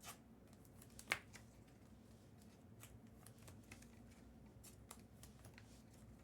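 Trading cards being handled and flipped through, with faint scattered clicks and one sharper click about a second in.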